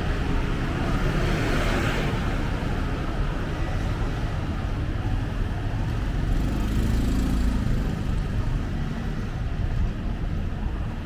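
City street traffic: motor vehicles running and passing in a steady low rumble. A brief hiss comes a second or two in, and a heavier engine swells as it goes by about six to seven seconds in.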